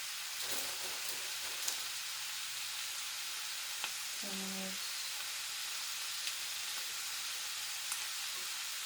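Food frying in a cast iron pan, a steady sizzle with a few faint clicks.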